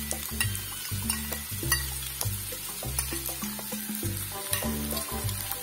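Shredded cabbage and other chopped vegetables sizzling in hot oil in a frying pan as the cabbage lands, with scattered light clicks. Background music with a low bass line plays underneath.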